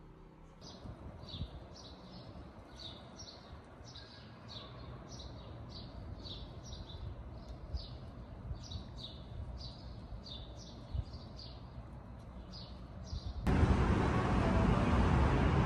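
A bird chirping over and over, about two short, falling calls a second, over a low background hum. Near the end the sound changes suddenly to much louder, even background noise.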